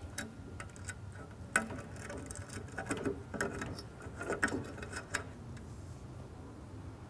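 Quiet handling of a rubber-jacketed power cord as it is pushed through a strain-relief fitting into a metal junction box: soft rubbing with scattered small clicks and knocks.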